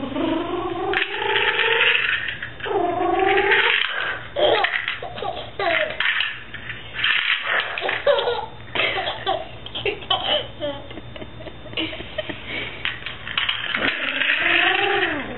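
A baby laughing in repeated bursts, the pitch gliding up and down.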